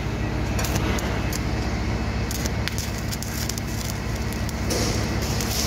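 Stick-welding (SMAW) arc crackling and sizzling steadily as the electrode melts a broken rod into a hole burned through thin steel tubing, with sharper pops now and then over a steady low hum.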